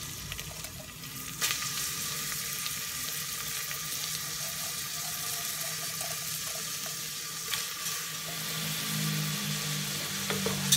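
Washed raw rice and split moong dal sizzling in hot ghee in a pressure cooker, a steady hiss that gets louder about a second and a half in.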